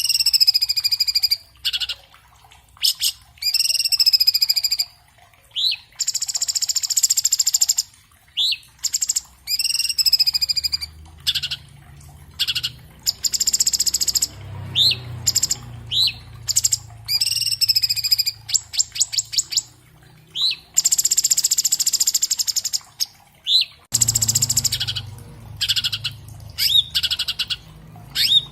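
Orange-bellied leafbird singing a fast, varied song of short rising whistles, wavering whistled notes and harsh buzzy notes about a second long, with a quick trill of ticking notes about two-thirds of the way through.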